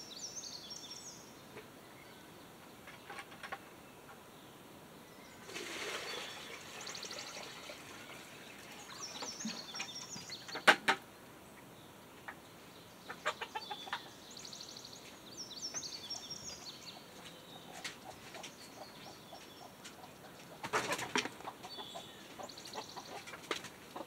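Chickens clucking around a coop, with small birds chirping and scattered rustling and handling noises; a single sharp knock about eleven seconds in is the loudest sound.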